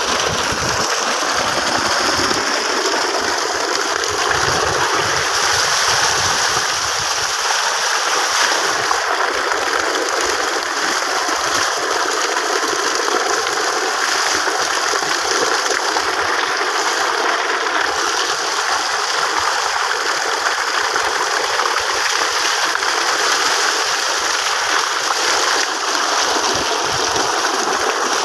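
Loud, steady rush of muddy water flowing from a tubewell along an irrigation channel.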